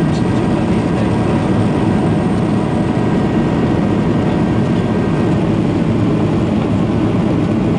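Cabin noise of a Boeing 737-800 from a window seat: its CFM56 jet engines and the airflow make a loud, steady rumble. A few faint whining tones fade out about five seconds in.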